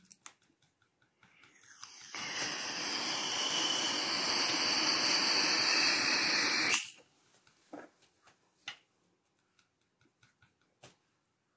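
A loud, steady hiss that swells over about half a second a second and a half in, holds for about five seconds, and cuts off suddenly.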